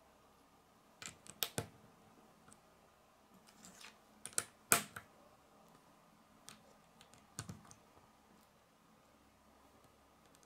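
Small plastic Lego bricks and plates being handled and pressed together by hand, making sharp clicks. The clicks come in three short clusters: about a second in, around four to five seconds in (the loudest), and about seven and a half seconds in.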